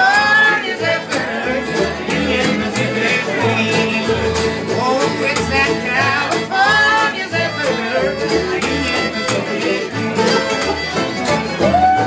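Acoustic string band playing a bluegrass-style tune: fiddles carry the melody over strummed acoustic guitars, with a steady low bass pulse.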